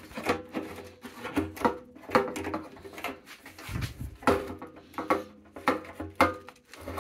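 New fuel pump assembly being jiggled and pushed into a motorcycle fuel tank's opening: an irregular run of knocks, clicks and scrapes as the metal hanger and hoses shift against the tank.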